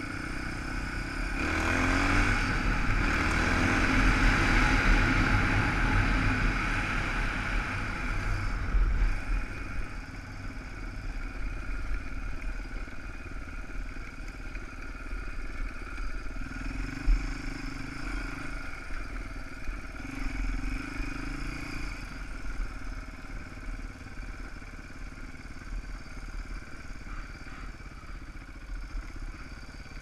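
Motorcycle engine running while riding over rough dirt ground. It gets louder for several seconds near the start, then runs steadier, with two short rises in revs in the second half.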